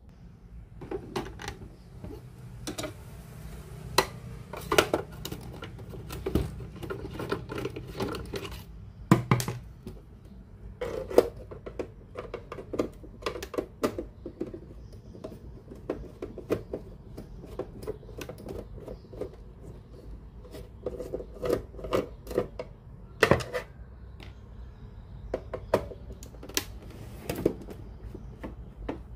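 Hands and tools working on a portable cassette radio, making irregular clicks, taps and light knocks of plastic and small parts over a faint low hum.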